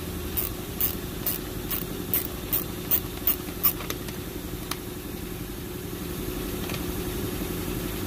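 Sharp clicks, about two or three a second for the first few seconds and then only a few, as a screwdriver-handled 5.5 mm socket turns out small screws, over a steady low hum.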